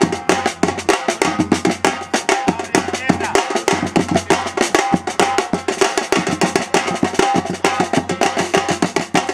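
Street percussion ensemble of five drummers playing together, large barrel-shaped bass drums under snare-type drums, in a fast, driving rhythm with many strikes a second.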